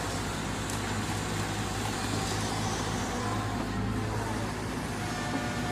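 Diesel engine of a SANY SY155W wheeled excavator running steadily under load as it digs and loads soil into a dump truck, a constant low engine drone.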